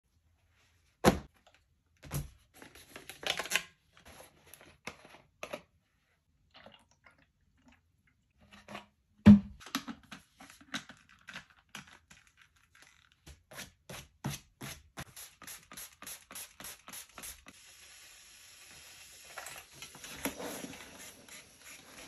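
Denim jeans rustling and slapped down on an ironing board with two sharp thumps, then a trigger spray bottle squirting starch in quick, even sprays, about three a second. Near the end a steady hiss as a steam iron presses the fabric.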